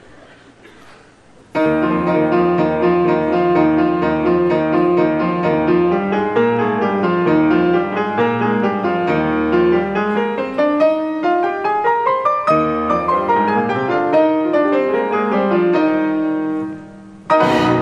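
Grand piano playing fast scale runs that climb and fall, starting suddenly about a second and a half in. Near the end the playing stops and a loud full chord is struck.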